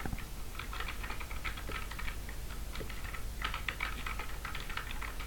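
Typing on a computer keyboard: quick, irregular key clicks, with a short lull about midway.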